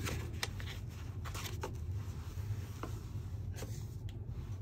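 Watch presentation box and its paper packaging being handled: light scraping and rustling with a handful of soft taps as the box is slid out and lifted.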